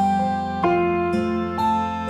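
Background music: a slow, gentle plucked-string melody, a new note sounding about every half second.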